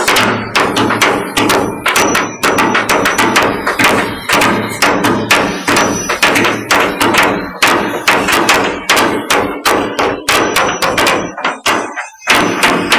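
Several chipping hammers striking a tugboat's steel deck to knock off rust: a loud, irregular clatter of sharp metal-on-steel strikes, several a second and overlapping, with a short break near the end.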